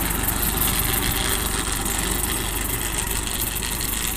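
TAFE 45 DI tractor's diesel engine running steadily as it pulls a rotary tiller.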